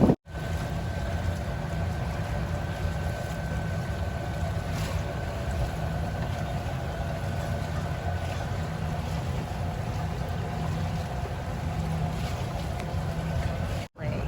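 Motorboat engine running at a steady speed: a constant low rumble with a steady whine above it.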